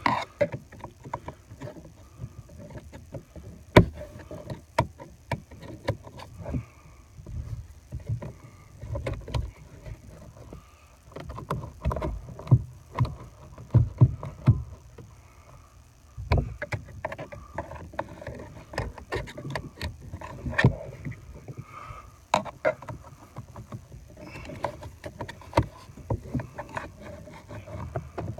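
Irregular clicks, knocks and low thuds of hands and a tool working behind a pickup's steering wheel, feeling for the last airbag fastener, with the sharpest knocks clustered in a few bursts.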